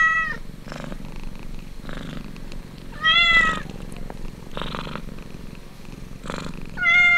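Cat purring with a slow pulsing rhythm while kittens suckle, broken by short, clear mews: one at the very start, another about three seconds in, and one near the end.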